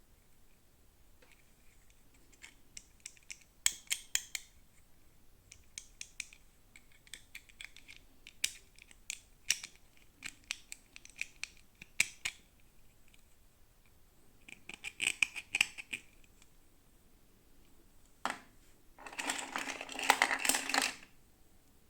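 Toy packaging being handled and opened: scattered light clicks and taps, then two bursts of crinkling, a short one about two-thirds of the way in and a longer, louder one near the end.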